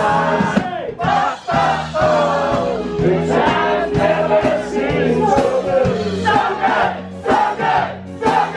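Party music with a steady bass line, a man singing into a handheld microphone and a crowd singing and shouting along.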